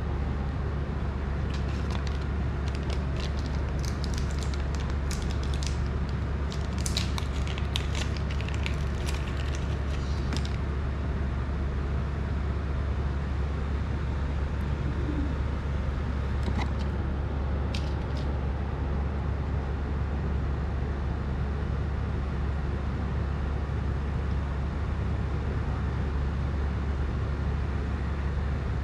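Steady low hum, with faint light clicks and ticks of small parts and tweezers being handled on a workbench, many in the first ten seconds and a couple more about halfway through.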